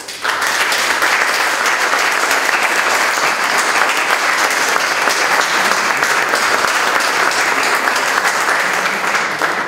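Audience applauding, starting abruptly and holding steady, then dying away at the very end.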